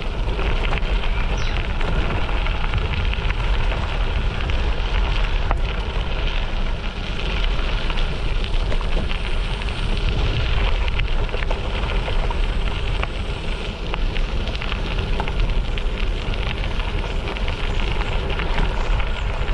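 Bicycle tyres rolling over a dry gravel track, a steady crackling crunch, with wind rumbling on the microphone.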